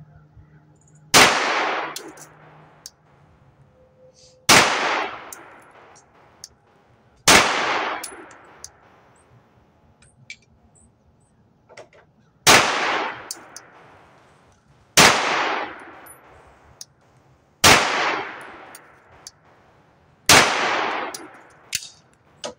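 Walther PPQ 9mm pistol firing seven deliberate single shots, about two and a half to three seconds apart, with a longer pause after the third. Each report has a short echo after it.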